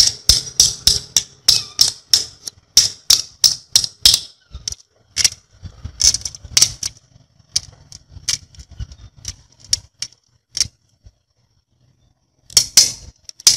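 Sharp metallic clicks of small steel screws snapping onto the tip of a freshly magnetized screwdriver and tapping against a sheet-metal tray. The clicks come about three a second at first, then thin out to single clicks, with a quick cluster near the end.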